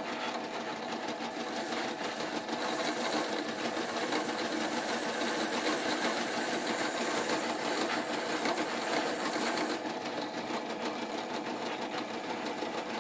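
Electric motor spinning a wire brush wheel with a steel bolt held against it, the bristles scrubbing off surface rust with a steady hiss over the motor's hum. The hiss is strongest until about ten seconds in, then eases as the bolt is lifted or turned.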